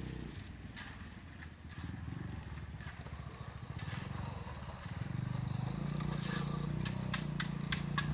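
An engine running steadily, growing louder about five seconds in, with a few sharp clicks or knocks near the end.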